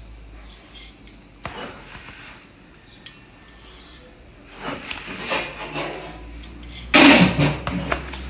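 Dry jeerakasala rice poured glass by glass from a steel tumbler into an aluminium pot: grains spilling onto the metal and the tumbler knocking on the pot, in several separate pours, the loudest about seven seconds in.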